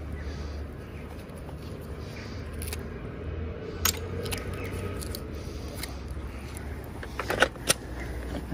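Metal clinking and scraping as a magnet-fishing find is handled, a handful of sharp clicks with the loudest near the end, over a steady low rumble.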